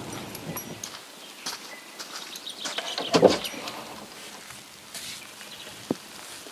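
Outdoor ambience with scattered faint bird chirps. About three seconds in comes one short, louder animal call, and near the end a single sharp knock.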